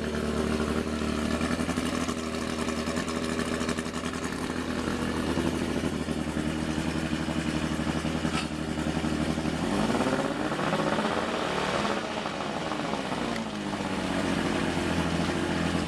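1985 Mercury 50 hp two-stroke outboard motor running steadily on flushing earmuffs; about ten seconds in it is revved up and eased back down, and it cuts off at the end.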